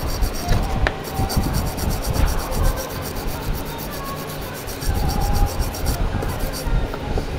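Irregular rubbing and scraping strokes from hand work on scooter rear brake parts.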